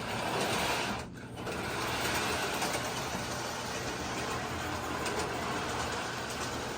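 Electric model train locomotives (Thomas and Percy) running along the track with a steady whirring motor and wheel noise, dipping briefly about a second in.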